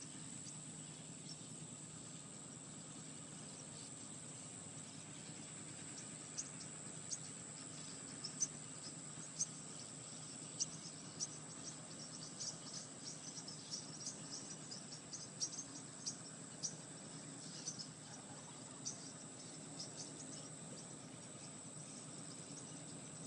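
Crickets chirping: a continuous high-pitched trill, with quick short chirps joining in through the middle stretch, over a steady low hum.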